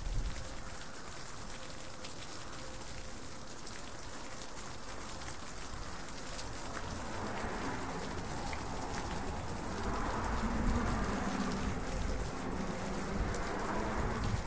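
Falling water drops pattering onto a surface like rain, a steady haze of many small drips. The patter grows fuller and a little louder from about halfway through.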